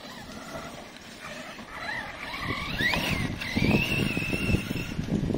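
Brushless electric RC car motor whining, rising in pitch as the car accelerates hard about two seconds in, then holding a steady high whine at speed. A rough rushing noise builds beneath it.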